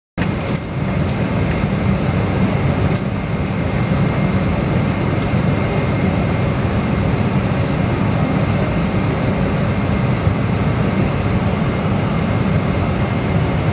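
Steady low rumble of an airliner's idling jet engines and cabin noise, heard from inside the cabin while the plane taxis, with a few faint clicks.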